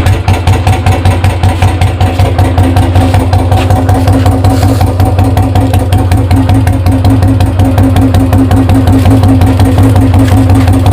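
Royal Enfield Classic 350's single-cylinder engine idling through a bend pipe and long bottle ('Punjab') silencer, a loud steady thump of evenly spaced exhaust beats. It cuts in abruptly at the start. This is the stock engine's own sound, with no manual decompressor fitted.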